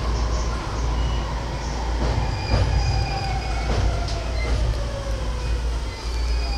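E231-series commuter train car running on the rails and slowing, heard from inside the car as a steady low rumble with a few wheel clicks. In the middle a whine slides down in pitch as the train decelerates, and thin high squealing tones come in during the second half.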